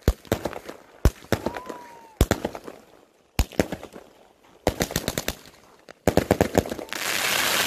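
New Year fireworks: clusters of sharp cracking bangs in quick series, one burst after another a second or so apart, then a loud hissing rush near the end.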